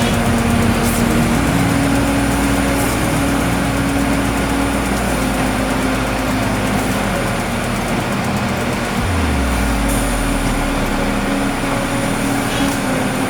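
Sound-designed motor hum: a steady engine-like drone with pitched tones over a low rumble. The rumble drops in pitch about nine seconds in.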